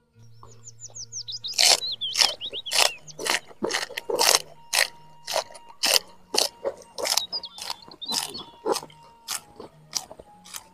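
Close-up crunching and chewing of raw leafy greens and stems dipped in sambal, about three crisp crunches a second, starting about a second and a half in.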